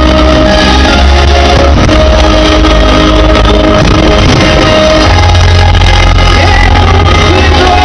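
Loud music with a heavy, steady bass line and sustained tones.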